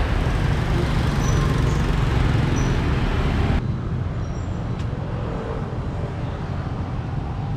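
Street traffic with motor scooters running and one passing close by. About three and a half seconds in, the sound cuts abruptly to a quieter, duller outdoor background.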